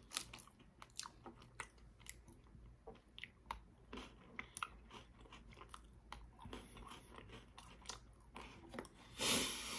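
A person chewing and biting crunchy chocolate-coated Pocky biscuit sticks, close to the microphone: a string of small, sharp crunches. Near the end comes a louder, longer burst of noise.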